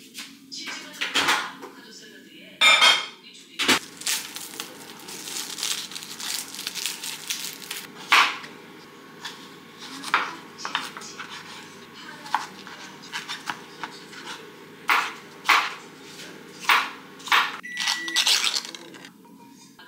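Kitchen prep sounds: a kitchen knife chopping a cucumber on a bamboo cutting board in a run of sharp knocks, with plates and utensils clinking on the counter. Near the end, the ring-pull lid of a tuna can is pried open.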